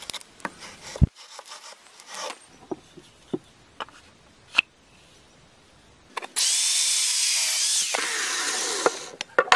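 A few sharp knocks and clicks, then an electric drill starts about six seconds in, boring a hole through the steel tang of a sword blade set in its wooden handle. It runs steadily for about two and a half seconds, and its pitch drops as it slows and stops near the end.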